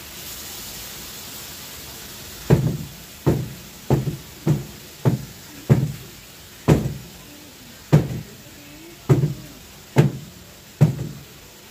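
A steady hiss of food frying in the pan, then starting about two and a half seconds in, about a dozen heavy thuds of chopping on a cutting board, roughly one a second.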